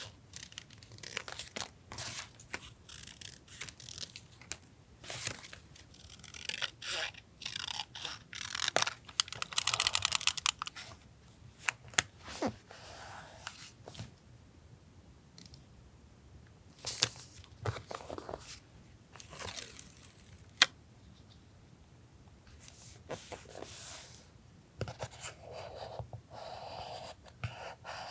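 Paper collage work on a journal: paper and sticker sheets rustled, handled and torn, with scattered sharp clicks and taps. A loud, rapid rasping tear comes about ten seconds in.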